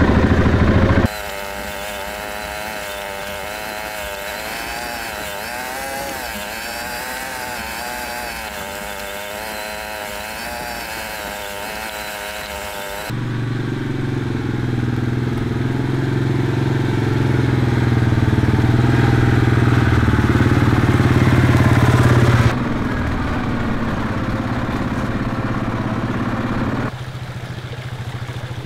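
ATV engine running as the four-wheeler rides along a dirt trail, its pitch wavering up and down with the throttle. About 13 seconds in it changes abruptly to a deeper, louder steady engine note, then steps down twice near the end.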